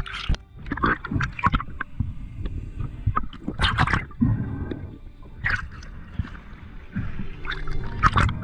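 Irregular sloshing, splashing and bubbling of seawater against an underwater action camera, moving between the surface and underwater.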